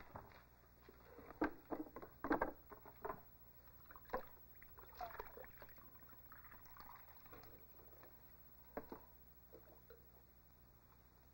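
A wooden ladle clacking against a wooden bucket, then water poured from the ladle into a small cup in a short trickle. Several light knocks come in the first few seconds and one more near the end.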